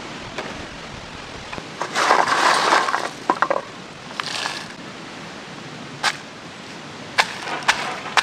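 Garlic cloves crackling and rustling as they are handled and dropped into a stone mortar, followed by several sharp knocks of a wooden pestle pounding them against the stone.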